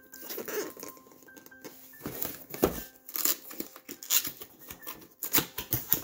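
Cardboard box being opened by hand: flaps pulled apart, cardboard scraping and tearing, with packaging crinkling in irregular bursts and a few sharp louder rips.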